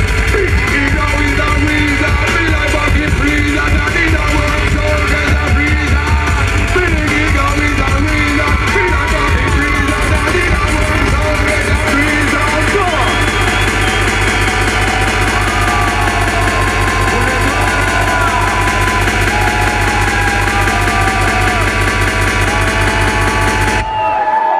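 Loud electronic dance music over a PA system, with a heavy pounding beat and melodic vocal lines. It cuts off abruptly about a second before the end.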